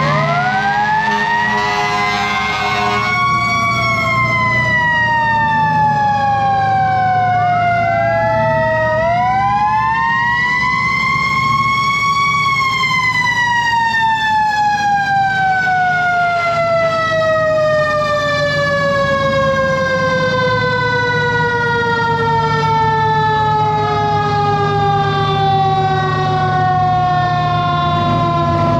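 Fire engine siren wailing: it rises, falls, winds up again, then winds down slowly over the last half, with a second siren overlapping at the start. The fire engine's Detroit Diesel 8V71 engine runs steadily underneath.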